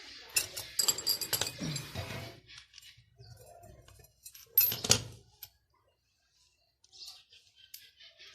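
Metal tools and parts clinking and knocking while rubber bushes are fitted into a motorcycle's rear shock absorbers. There is a cluster of clinks over the first two seconds, two sharp knocks about halfway through, and faint ticks near the end.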